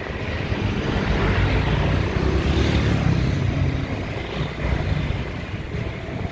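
A steady low rumble of vehicle noise, swelling for a moment about two to three seconds in.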